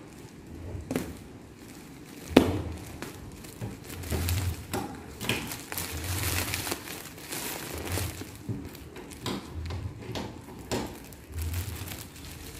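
Plastic parcel wrapping crinkling and rustling as it is handled and picked open, with many small clicks and taps and one loud snap about two seconds in.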